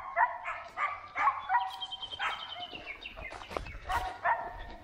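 A dog yelping in quick, high-pitched yips, then one drawn-out cry, and another burst of yips near the end: the excited voice of a dog that has found something.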